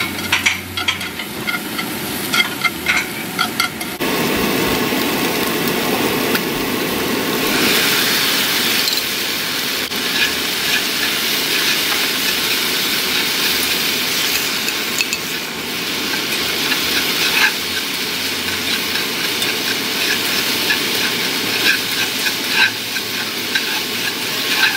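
Shrimp sizzling in a hot pan as chopsticks stir them, with small clicks of the chopsticks against the pan. About four seconds in, the sizzle jumps suddenly louder and fuller as the sauce goes into the pan, and it keeps frying while the shrimp and then sliced bell peppers are stirred through the sauce.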